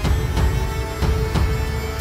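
Background music with a steady beat of heavy bass thumps under held tones.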